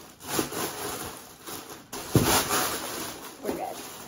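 Tissue paper and packaging rustling and crinkling as things are lifted out of a cardboard box, with the loudest crinkle about two seconds in and a smaller one near the end.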